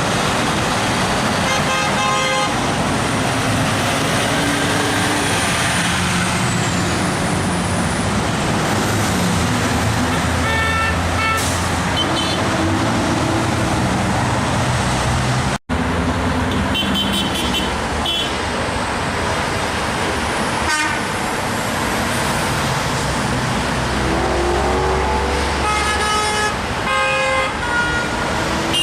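Steady highway traffic passing with car and truck horns honking in short blasts, about two seconds in, again around eleven and seventeen seconds, and several in a row near the end. The honks are drivers answering a roadside call to honk.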